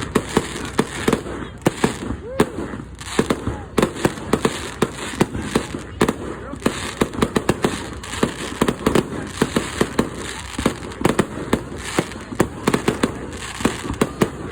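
Fireworks going off in quick succession: a dense run of sharp bangs and crackles, several a second, with no real break.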